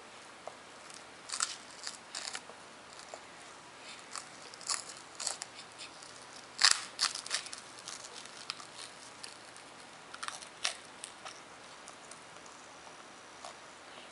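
A baby biting and gnawing on a Baby Mum-Mum rice rusk: scattered, irregular crisp crunches and crackles. The loudest cluster comes about six and a half seconds in.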